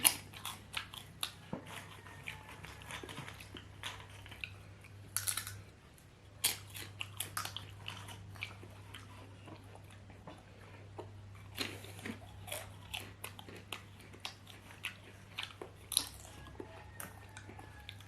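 A person chewing potatoes with sambal close to the microphone: irregular sharp mouth clicks and smacks, pausing briefly about six seconds in. A steady low hum runs underneath.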